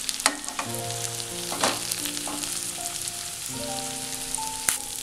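Marinated chicken pieces frying in hot coconut oil in a shallow pan: a steady sizzle, with a few sharp clinks and scrapes of a spatula against the pan as the three-quarters-cooked pieces are lifted out.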